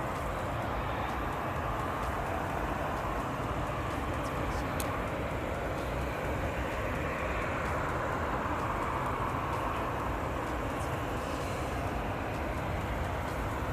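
Boeing 777 jet airliner noise: a steady, even rush of engine and air noise with no breaks.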